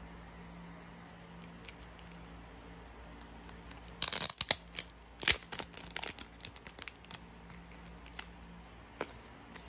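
Clear plastic photocard sleeve crinkling and tearing as it is opened: a burst of sharp crackles starting about four seconds in and lasting a couple of seconds, then a few light plastic clicks as the card is slid out.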